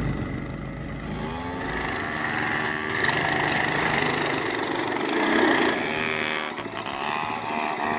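Small single-cylinder engine of an off-road go-kart revving under throttle, its pitch rising and falling as the kart is driven over rough ground and hay.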